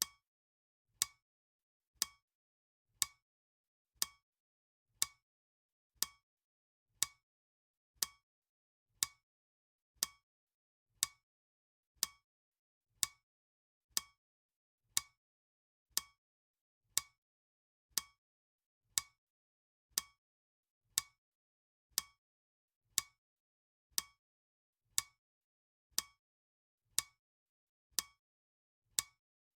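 Clock ticking at a steady pace, a sharp tick about once a second, evenly spaced.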